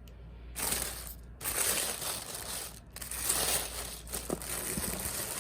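Tissue paper crinkling and rustling in several bursts as it is handled and pushed aside.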